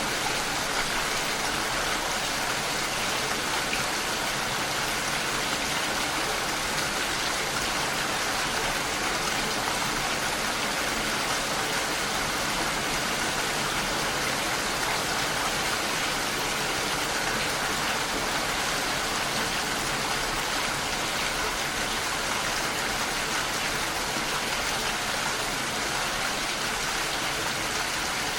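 Rain falling steadily: an even, unbroken hiss with no single drops standing out.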